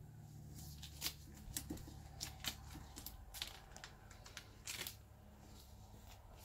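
Match Attax trading cards slid and pressed into the clear plastic pockets of a card binder: a scattered string of faint crinkles and small clicks from the plastic sleeves over a low steady hum.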